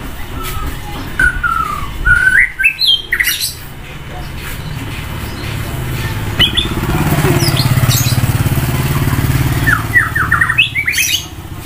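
White-rumped shama singing in quick bursts of sliding whistled notes, in the first few seconds and again near the end. In the middle a vehicle passes on the road, its engine swelling and fading.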